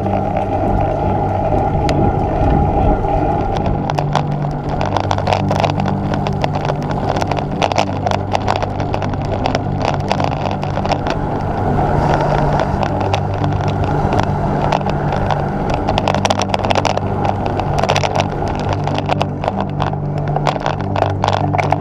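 Ride noise from a bicycle-mounted camera: steady road rumble and wind, with frequent rattling clicks and knocks as the bike runs over the rough lane surface.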